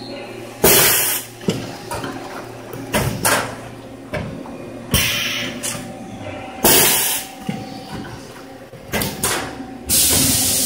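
Single-lane conveyor automatic food-container sealing machine running. A steady hum carries short bursts of hiss about every two seconds, with a few sharp clicks and knocks among them.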